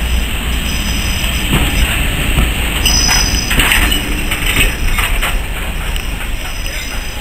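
Heritage railway passenger coaches rolling past at low speed with a steady rumble, their wheels clicking over rail joints in a run of knocks about halfway through.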